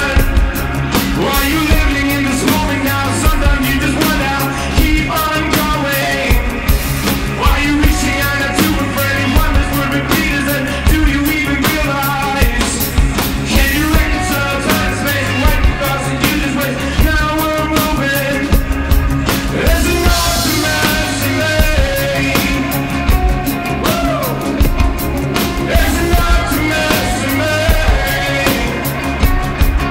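A rock band playing a song live: drum kit keeping a steady beat under guitar, with a man singing lead.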